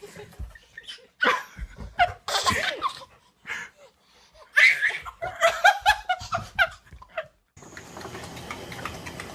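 A child laughing in two bursts, the second a quick run of giggles. About seven and a half seconds in, it gives way abruptly to a steady hiss.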